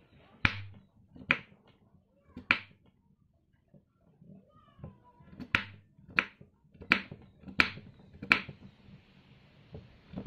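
Kitchen knife chopping raw sweet potato on a wooden cutting board, each cut ending in a sharp knock of the blade on the board. There are eight chops: three spaced out, then a pause, then five in quicker succession.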